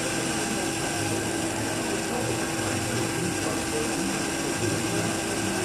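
Norden bombsight's mechanism running with a steady mechanical whir and a constant hum as its knobs are worked during the bombing approach.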